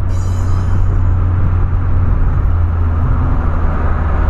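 Cabin noise of a Volkswagen Polo on the move: a steady low engine drone with road and tyre noise.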